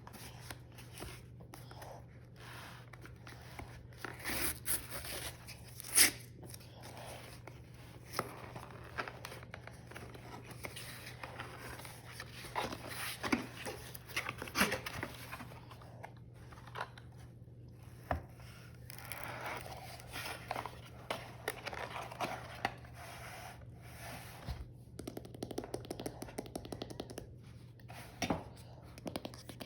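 Product packaging being torn open and handled: tearing and crinkling of wrap, with scrapes and sharp taps, over a steady low hum.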